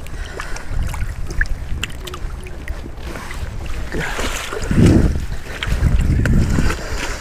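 Wading boots sloshing and splashing through shallow river water, over a steady low rumble of wind on the microphone. Two louder surges of splashing come about halfway through and again shortly after.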